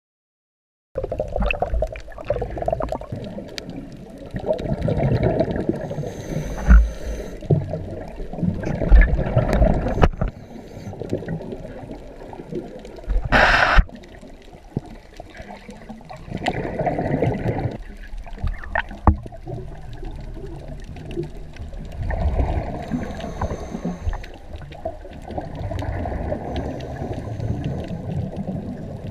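Muffled underwater sound from a camera in a waterproof housing: a low water rumble and gurgling that swells and fades, with bubbles from the freediver. A short, loud rush of noise comes about halfway through.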